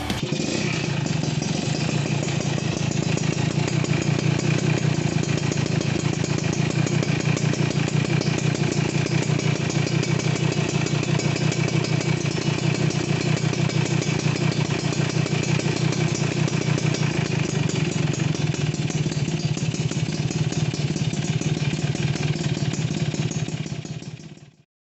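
Yamaha F1ZR two-stroke single-cylinder motorcycle engine idling steadily through an aftermarket RC100-style exhaust, with a fast, even popping pulse. It stops abruptly near the end.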